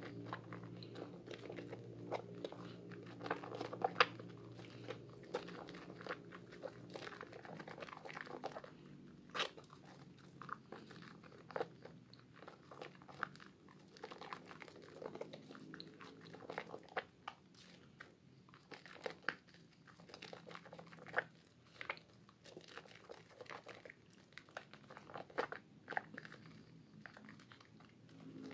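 Hands squeezing and kneading soaked soap in thick lather: wet squelching with an irregular stream of small crackles and pops from the foam.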